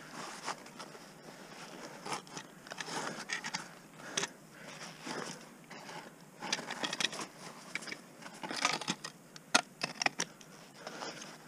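Black Diamond ice axes and crampons striking and scraping into plastic waterfall ice as the climber moves up the column: an irregular series of short, sharp strikes and crunching scrapes, bunched in the second half.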